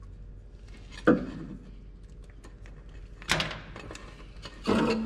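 Clanks of metal exhaust parts being handled and fitted up under a car: three sharp knocks, about one, three and nearly five seconds in, with small clicks between them. The last knock leaves a short ringing tone.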